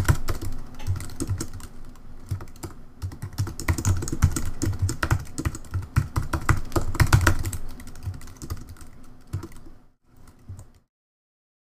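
Typing on a computer keyboard: quick, irregular keystrokes that stop near the end.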